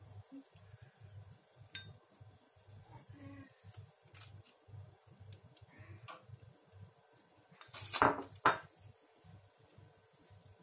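Kitchenware clinking and knocking: scattered light clicks, then two loud sharp knocks about eight seconds in, half a second apart, over a faint low pulsing hum.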